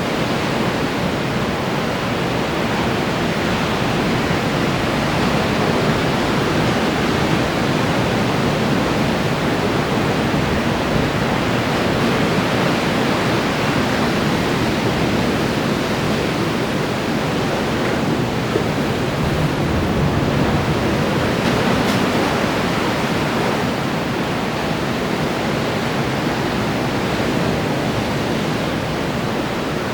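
Ocean surf breaking on the shore: a continuous, dense wash of waves with gentle rises and falls in loudness.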